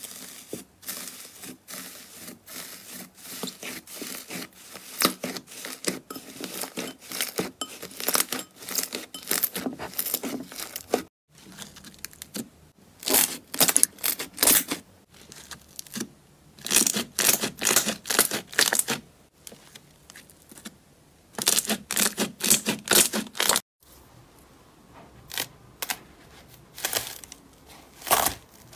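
Hands pressing and kneading slime in three separate clips. First, metallic foil laid over slime crinkles as it is pressed. From about eleven seconds in, a soft red slime squishes and pops as it is squeezed, and from about 24 seconds in, a slime full of foam beads crackles under the fingers. Each clip is a run of short crackles and pops with pauses between presses.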